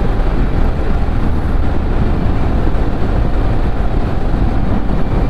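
Steady rush of wind and engine noise from a motorcycle on the move, heard through a rider-mounted action camera.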